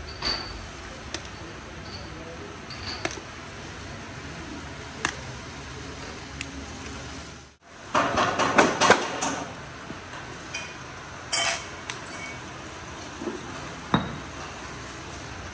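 Steel truck kingpins and cardboard boxes being handled during packing: scattered single light knocks and a close run of metallic clinks and knocks a little past halfway.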